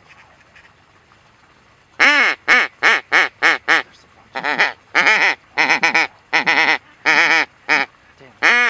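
A loud series of mallard-style quacks starting about two seconds in: six quick quacks, then after a short pause a slower run of longer, drawn-out quacks.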